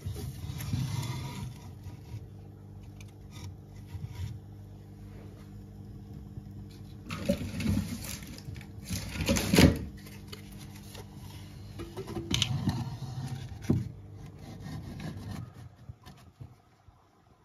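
Split firewood logs being set down and shifted into place on the brick hearth of a masonry baking oven: a few knocks and scrapes, the loudest about nine and a half seconds in, over a steady low hum.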